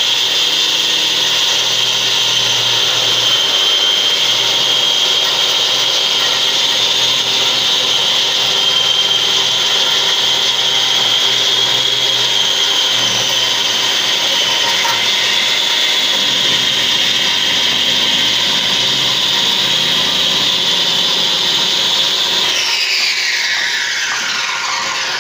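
Electric wall chaser cutting a groove into a concrete block wall: a loud, steady high motor whine over the grinding of the blade in the block. Near the end it is switched off and the whine falls away as the blade spins down.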